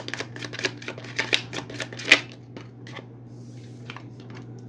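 A deck of tarot cards being shuffled by hand: a quick run of card clicks, about seven a second, ending in a louder snap about two seconds in, then a few scattered taps as the cards are handled more slowly.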